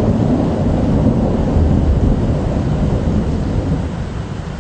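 Thunder rumbling low and continuously, with a fainter hiss of rain; the rumble fades away near the end.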